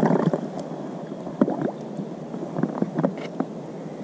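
Water splashing and gurgling as a northern pike is held in the river by hand and released. There is a louder splash at the start, then scattered small splashes and drips.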